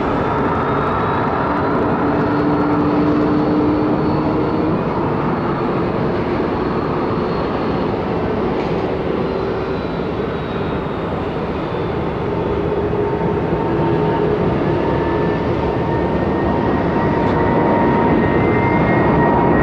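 Boeing 777 twin jet engines at takeoff thrust during the takeoff roll: a steady loud jet roar with faint whining tones, growing louder in the second half.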